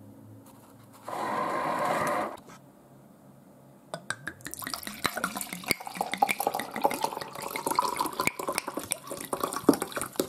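A motorized paper towel dispenser runs for about a second. Then, about four seconds in, sangria is poured from a bottle into a glass, glugging and splashing.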